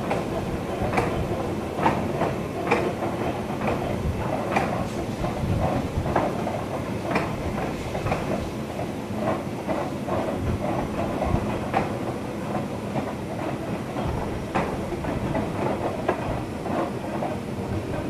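A train running along the track, its wheels clicking irregularly over rail joints and points above a steady rumble, heard from the driver's cab.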